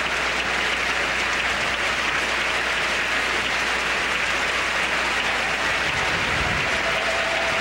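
Large stadium crowd applauding steadily at the end of a tennis match.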